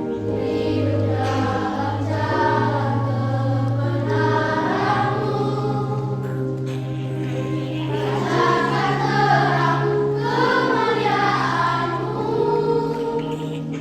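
A children's choir singing a Christian song over steadily held low accompaniment notes.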